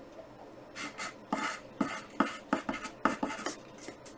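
Pencil writing and drawing on graph paper: about a dozen short, scratchy strokes in an uneven rhythm, starting about a second in and stopping just before the end.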